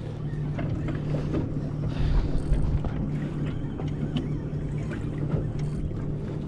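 Small boat's outboard motor idling with a steady low hum, with wind on the microphone and a few light knocks.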